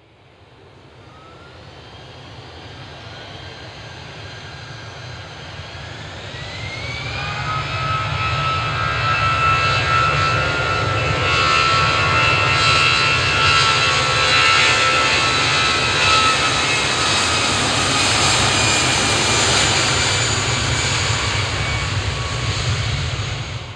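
Jet airliner engines spooling up with a rising whine, then running loud and steady at high power with a broad roar. The sound cuts off suddenly at the end.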